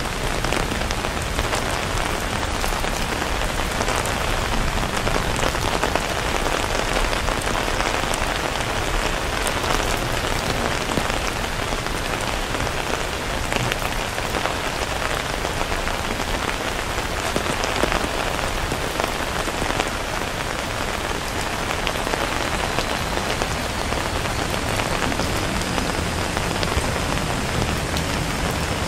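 Steady rain: an even hiss of falling rain with many small, crisp drop ticks scattered through it.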